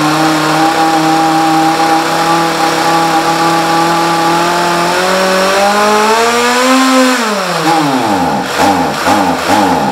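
Stihl 044 two-stroke chainsaw engine, freshly rebuilt, running at a steady speed for about five seconds. Its revs then rise, fall sharply, and near the end the throttle is blipped repeatedly, about twice a second.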